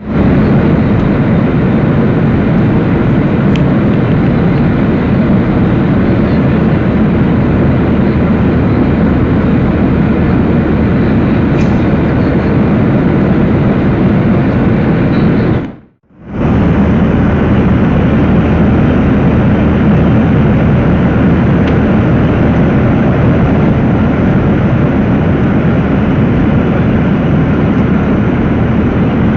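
Loud, steady engine and airflow noise of a passenger aircraft, with a steady low hum beneath, dropping out for a moment about halfway through.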